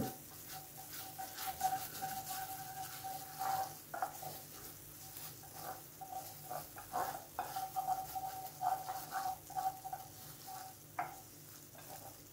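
A spoon stirring and scraping a thick mix of melted butter, mulberry molasses and ginger in a pan over heat, with light sizzling as the mixture cooks down and thickens. The strokes come irregularly, with a faint squeak as the spoon drags across the pan and a few sharp taps against it.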